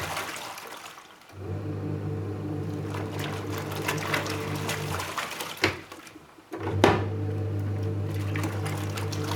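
Panasonic twin-tub washing machine on its wash cycle: the wash motor hums steadily while water churns in the tub. It stops twice for about a second and starts again, the pause as the pulsator changes direction.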